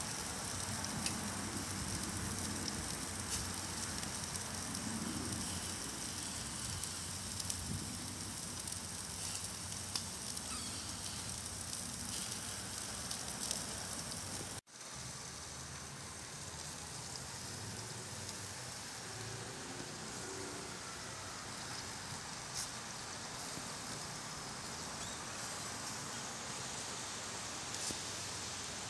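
Thick bone-in steak sizzling on a grill grate over hot charcoal, with scattered crackles and pops. The sound cuts out for an instant about halfway through, then carries on a little quieter.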